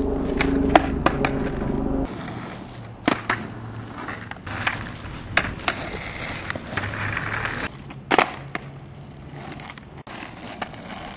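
Skateboard wheels rolling on asphalt, broken by sharp clacks of the tail popping and the board hitting the ground as flatground tricks are tried several times. A steady low hum runs under the first two seconds and cuts off abruptly.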